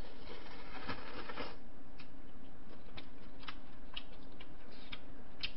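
Jjamppong noodles slurped for about a second near the start, then chewing with short wet mouth clicks.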